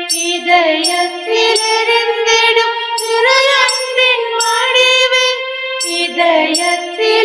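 A devotional hymn sung over sustained instrumental accompaniment, with long held notes that step up and down in pitch.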